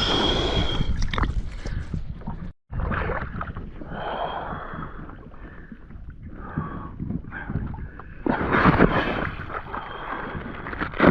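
Water splashing and sloshing around a capsized kayak and a man in the water, in uneven surges, with a brief cut-out of the sound about two and a half seconds in.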